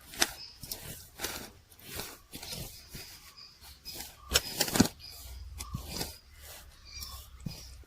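Hands mixing a dry coating of cornflour, spices and oats in a bowl: irregular scraping, rustling strokes, a few louder ones about halfway through.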